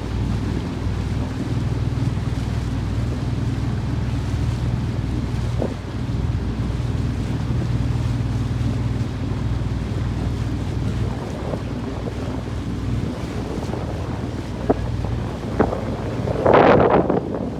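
A boat's engine running steadily, with wind buffeting the microphone and water rushing past the hull. A louder gust or splash comes about a second before the end.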